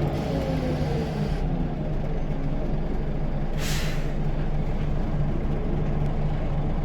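Scania L94UB bus engine running steadily, with a turbo whistle falling in pitch during the first second. A short, sharp hiss of released air comes a little over three and a half seconds in.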